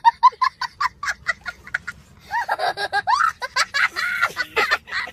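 A young child laughing hard: a quick run of short, high 'ha' bursts for about two seconds, then longer squealing laughs that bend up and down in pitch.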